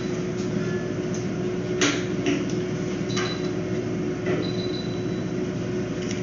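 Steady machine hum in a veterinary exam room, with a few short clicks and knocks of equipment being handled; a faint high tone sounds for about a second near the end.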